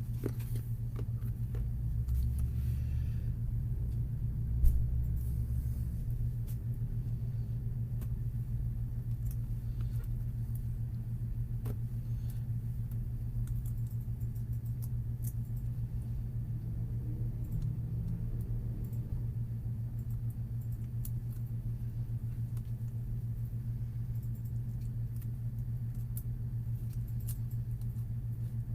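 Steady low hum with a few faint clicks and a single sharp knock about five seconds in.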